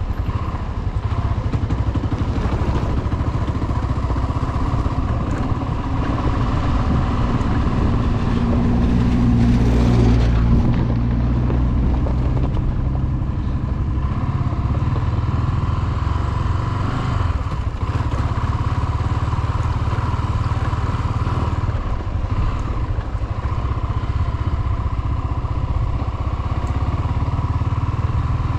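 Small-displacement motorcycle engine running steadily while riding. It gets louder about ten seconds in, then settles back.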